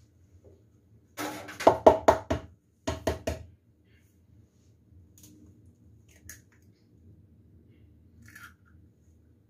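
An egg tapped against the rim of a mixing bowl to crack its shell: a quick run of about five knocks, then three more a moment later, then faint clicks as the shell is pulled apart.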